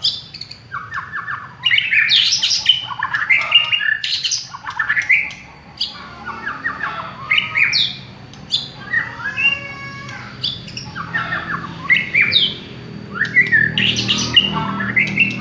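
White-rumped shama (murai batu) singing a long, varied song of short whistled phrases, rapid trills and rising and falling glides. A low hum comes up near the end.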